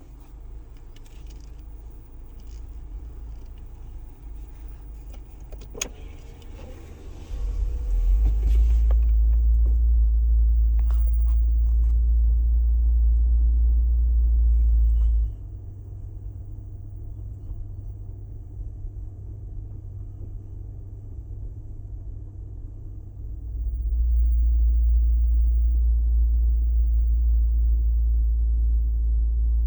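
A vehicle's deep, steady drone that swells loud about seven seconds in, falls away at about fifteen seconds, and comes back strongly at about twenty-four seconds. This is the drone noise the recording was made to capture. A few faint clicks sound in the first several seconds.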